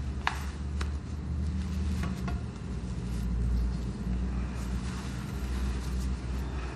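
A steady low rumble, with a few short clicks in the first couple of seconds.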